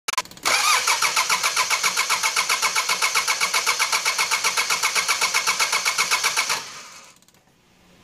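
Starter motor cranking a Mitsubishi 4D56 four-cylinder diesel in an even rhythmic beat, about eight a second, for about six seconds, then stopping: the engine turns over but never fires, a cranking no-start.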